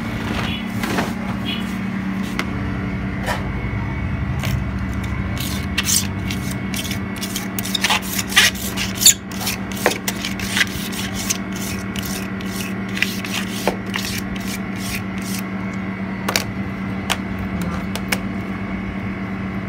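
A steady machine hum runs throughout. Over it come a string of sharp clicks, taps and short scrapes, thickest in the middle, as a stripped Samsung Galaxy S7 edge's metal frame is moved about and set down on the frosted metal plate of a glass-separating freezer.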